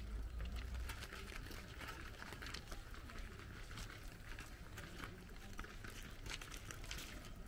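Faint outdoor background: scattered light ticks and clicks over a low rumble that eases off about a second in.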